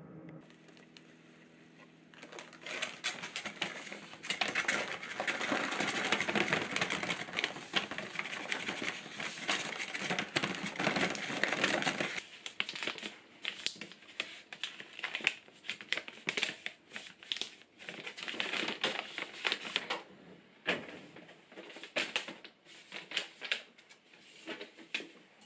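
Close handling noise: dense, crackly rustling and crinkling for about ten seconds, then a run of separate sharp crinkles and clicks.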